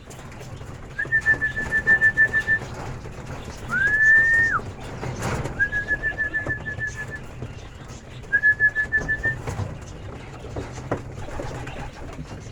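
High whistled trills: three runs of quick, even pulses at one steady pitch, with a single whistle that rises and then holds between the first two.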